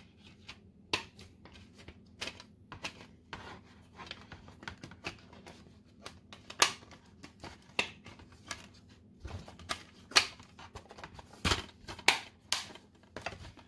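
Plastic Blu-ray case being handled: a string of irregular clicks and snaps as the open case and its discs are worked by hand.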